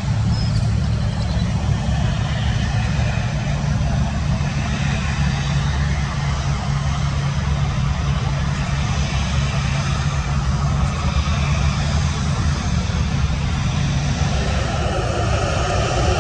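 Airliner engines running: a steady low rumble with a low hum, the higher part of the noise growing stronger near the end.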